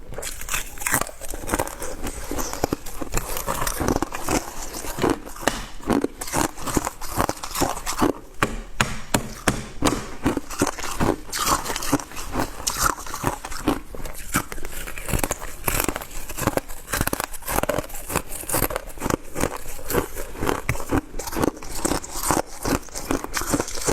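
Shaved ice being chewed close to the microphone: a continuous run of crisp crunches.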